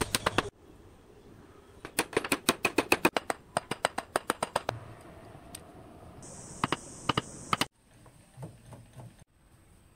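Brisk runs of sharp taps of a hammer on wooden pieces, about four a second, followed by a short high hiss with a few clicks over it and then a few soft taps.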